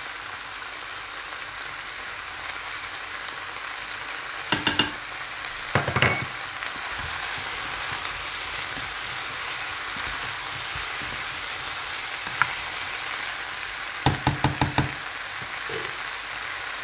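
Shrimp sizzling in olive oil with garlic and fresh coriander in a frying pan, a steady hiss, while being stirred. Two short runs of quick clicks and knocks stand out, about four and a half seconds in and again about fourteen seconds in.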